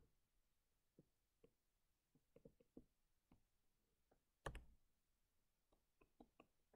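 Near silence with faint, scattered clicks and taps of a stylus on a tablet screen while writing, one a little louder about four and a half seconds in.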